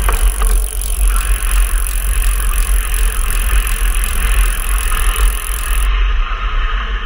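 Steady wind rumble on the microphone of a camera riding on a moving bicycle, over the noise of tyres on a paved trail.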